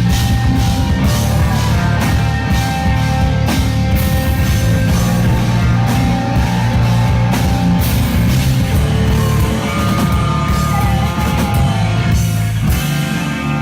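Rock band playing live: loud distorted guitar over bass and pounding drums. Near the end the bass and drums drop out, leaving the guitar ringing on.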